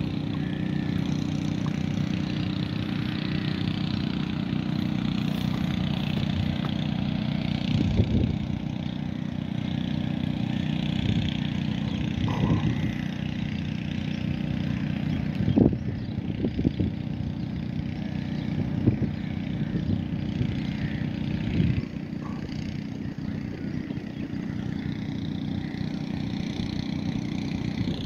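A steady low motor hum with a constant hiss of traffic or machinery, and a few soft knocks.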